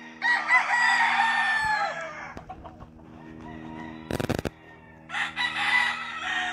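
Roosters crowing: two long crows, the first starting just after the beginning and the second about five seconds in, each dropping in pitch at its tail, over a steady low hum. A short knock sounds about four seconds in.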